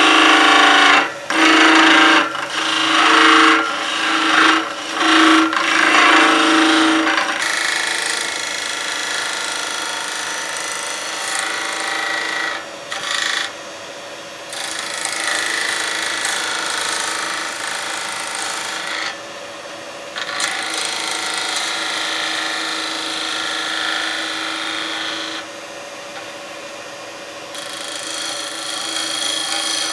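Record Power Coronet Herald wood lathe running while a gouge cuts a spinning golden cypress blank, a hissing shaving cut over the lathe's steady hum. For the first several seconds the cut is louder and stops and starts about five times as the tool is lifted. After that it settles into a steadier, quieter cut with a few short pauses.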